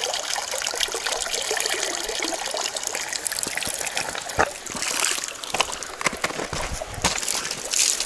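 Water trickling and splashing as a freshly filled birch bark container is lifted from a shallow stream, water pouring and dripping out of it: the bark container is leaking. A few sharp taps and splashes stand out in the second half.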